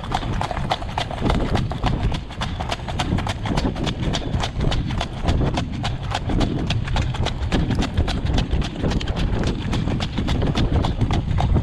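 Trotting horse's hooves on a gravel road, clip-clopping in a quick, even rhythm as it jogs in harness pulling a jog cart, over a steady low rumble.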